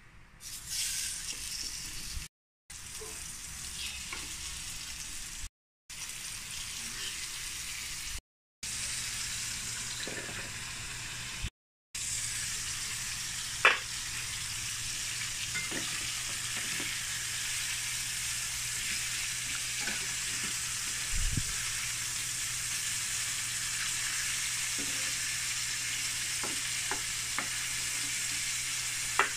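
Chicken pieces sizzling as they fry in hot oil in a frying pan: a steady hiss that cuts out to silence four times in the first twelve seconds, with a few sharp clicks, the loudest about two-thirds of the way through the first half.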